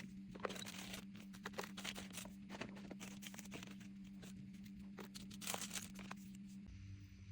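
Packaging being crinkled and torn open while items are unwrapped: an irregular run of rustles and small clicks that stops near the end.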